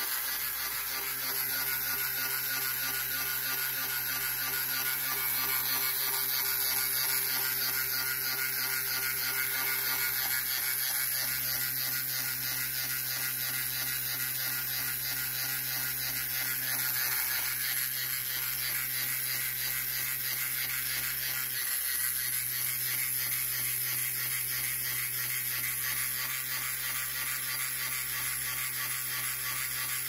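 Small AA-battery electric motor and gear train of a Tamiya Flying Seagull display kit running steadily, whirring as its crank drives the seagull's flapping wings.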